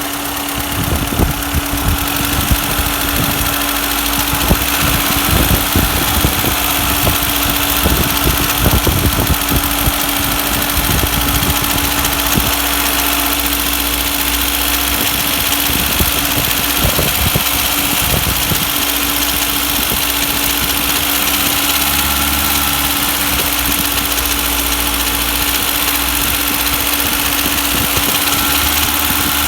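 Moskvich Svyatogor 2.0 engine idling with an irregular knock, most frequent in the first ten seconds or so; the owner is asking what the knock is.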